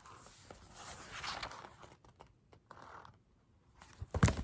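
Paper rustling and scraping as a picture book's pages are handled and turned, with a sharp knock about four seconds in.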